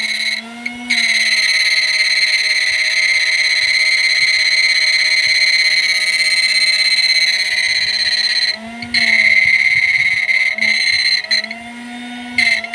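Mini MOSFET inverter running under load off a battery that is going flat, giving a steady high-pitched whine over a lower hum. The whine cuts out briefly about half a second in, again near nine seconds, and for about a second near the end.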